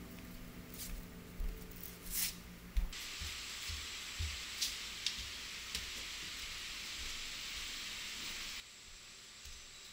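A steady hiss that starts abruptly about three seconds in and cuts off shortly before the end, with a few soft knocks and clicks.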